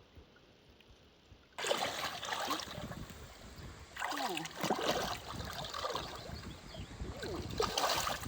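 Water splashing and sloshing. It starts suddenly about a second and a half in and surges again around four seconds and just before the end.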